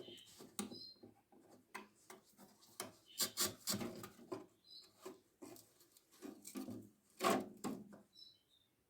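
Irregular knocks, taps and scraping on wood, with a few short high bird chirps: one about a second in, one near the middle and a pair near the end.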